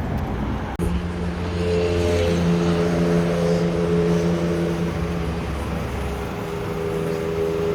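A steady motor hum with several held tones, after a brief cut about a second in.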